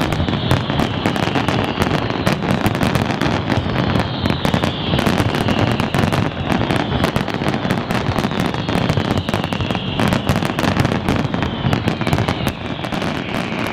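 Dense, continuous fireworks barrage: rapid overlapping bangs and crackles with no gaps, over a high tone that slides down in pitch every few seconds.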